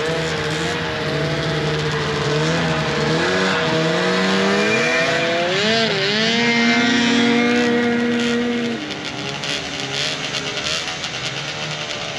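Several vintage two-stroke snowmobile engines running and revving together, their pitches rising and falling over one another. It is loudest in the middle and eases off about three-quarters of the way through.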